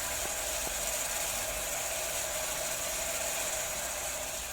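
Onions and ginger-garlic paste frying in hot oil in a pressure cooker pan, a steady sizzling hiss with a couple of faint clicks about half a second in.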